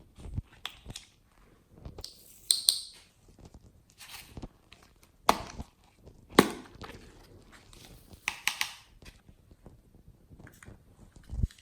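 Glossy slime being worked by hand: irregular sticky squelches and sharp pops and clicks, some louder than others.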